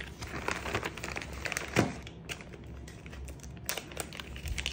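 Handling noise from an airsoft tracer unit being screwed onto a 14 mm thread: scratchy rubbing and many small clicks, with one sharper click just under two seconds in.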